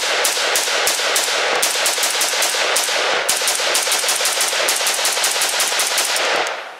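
Galil ARM-pattern 5.56 NATO rifle firing a rapid string of shots, several a second, that stops about six and a half seconds in.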